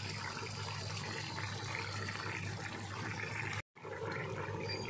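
Pot of coconut-milk vegetable stew simmering in a wok, giving a steady bubbling hiss with a faint low hum underneath. The sound cuts out for a moment about three and a half seconds in, then carries on.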